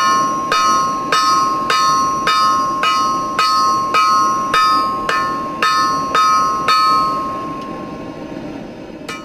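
Hammer blows on an anvil, about twelve evenly spaced strikes less than a second apart, each leaving the anvil with a bright ringing tone. The smith is drawing a taper on the end of thin round bar. The hammering stops about seven seconds in and the ring fades away.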